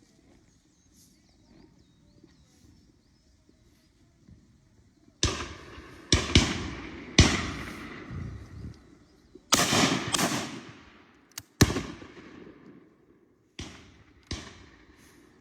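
Airsoft gun shots: after a quiet start, about nine sharp reports come at irregular intervals from about five seconds in, each trailing off in a long echoing tail.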